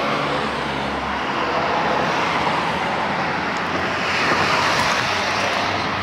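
Cars driving past on a race track straight: a steady rushing noise that swells about four seconds in as a first-generation Honda Insight hybrid passes close by.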